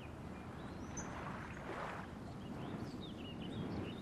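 Faint outdoor nature ambience: a low, steady rushing noise with a soft swell near the middle, and a few faint, high, short chirps of small birds in the second half.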